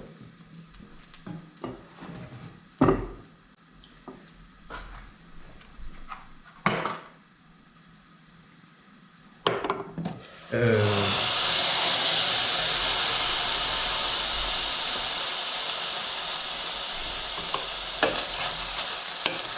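A few scattered knocks and clinks of kitchen utensils and pans, then about eleven seconds in a loud, steady sizzle starts as the eggs go into the hot frying pan and keeps going.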